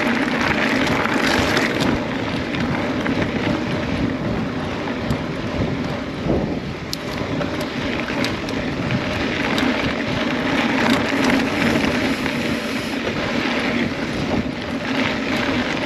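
Wind rushing over the microphone of a camera riding on a moving mountain bike, with the rumble of tyres on the dirt trail and a few small clicks and rattles from the bike.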